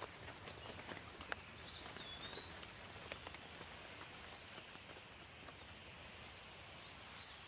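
Light rain falling steadily, with scattered drops ticking close by. A bird gives a few short whistled calls, around two seconds in and again near the end.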